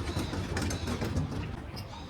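Outdoor street ambience: a steady low traffic rumble with a general hubbub, easing off slightly near the end.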